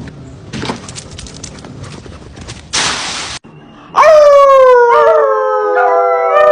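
A dog howls in one long call starting about four seconds in, its pitch sliding down and then holding. Before it comes a stretch of noisy rustling and clatter ending in a short, loud hiss.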